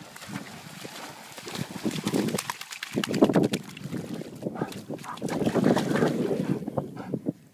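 A German Shorthaired Pointer splashing through shallow lake water as it runs in, then panting hard close by in two loud spells.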